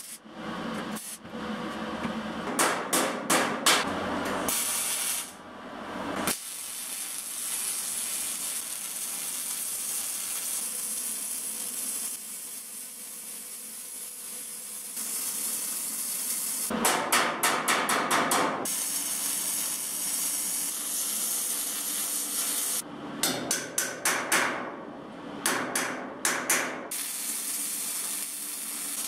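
MIG/MAG welding arc crackling and hissing as it welds sheet-metal hull seams. It comes in several runs of short stitch-weld bursts, with a long steady weld bead through the middle.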